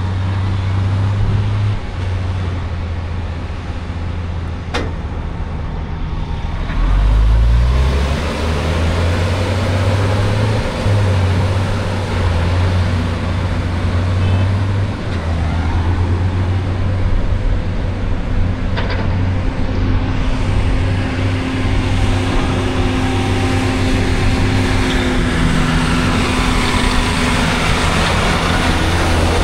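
Diesel engines of heavy earthmoving machines (articulated dump trucks and an excavator) running steadily, with one brief rev about seven seconds in.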